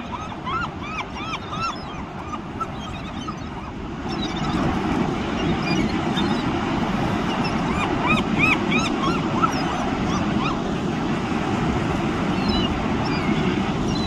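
Gulls calling in quick runs of short rising-and-falling cries as they squabble over food, several calls a second in bursts at the start, around the middle and near the end. Under them runs a steady rush of surf and wind that grows louder about four seconds in.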